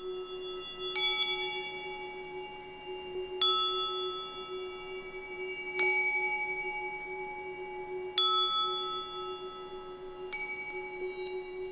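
Metal bowls struck with a mallet, five single strikes about two and a half seconds apart, each ringing out slowly, over a steady low tone.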